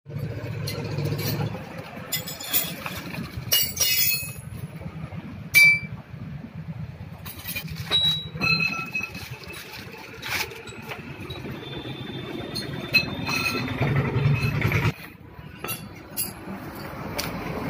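Hands unpacking a new tractor brake friction disc: cardboard box and plastic bag rustling and scraping, with scattered sharp metal clinks, over a steady low rumble.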